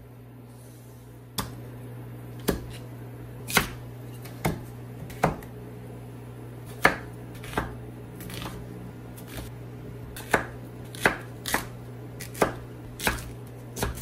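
Kitchen knife chopping a peeled Korean radish into chunks on a wooden cutting board: a string of sharp, unevenly spaced knocks, about one a second.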